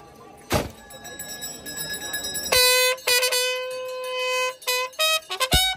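A sharp knock about half a second in, then a military bugle sounds a salute call: one long held note from about two and a half seconds in, followed by a few short notes near the end.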